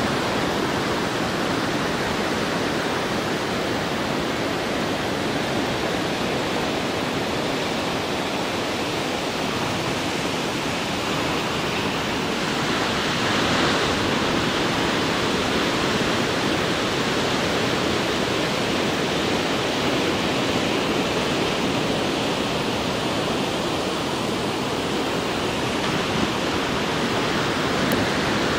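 Heavy ocean surf breaking along the coast, a steady, even rush of noise that swells slightly about halfway through.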